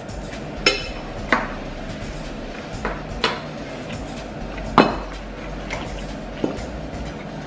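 Forks clinking against ceramic bowls and plates during a meal: about six light, separate clinks, the loudest about five seconds in.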